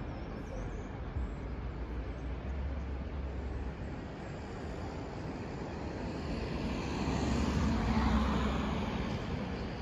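Road traffic noise: a steady rumble of passing vehicles, with one vehicle passing close and growing louder about seven to eight seconds in, then fading.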